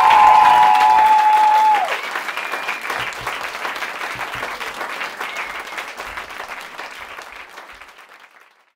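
Audience applauding, with the song's final held note ringing over it for the first two seconds; the applause then fades out.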